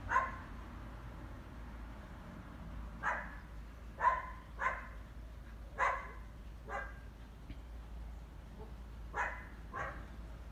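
A dog barking in single, unevenly spaced barks, about eight in all, with gaps of up to three seconds between them.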